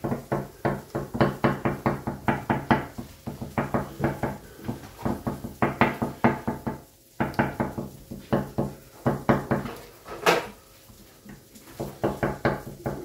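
Metal forks docking a sheet of raw puff pastry, the tines tapping through the dough onto the table in rapid, uneven taps, about four or five a second. The taps pause briefly about seven seconds in, one sharper click comes near ten seconds, and the tapping thins out for a moment before picking up again.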